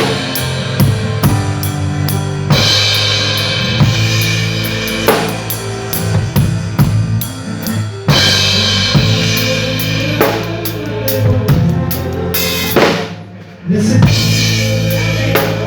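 Live band playing during a sound check, led by a drum kit: bass drum, snare and cymbals over held low bass notes, with cymbal crashes every few seconds. About 13 s in the music breaks off briefly, then comes back in with a crash.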